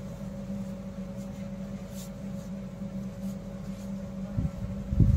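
Faint rustling and scratching of cloth strips being pulled through loops by hand, over a steady electrical hum. Near the end, low rumbling bumps come in and grow louder.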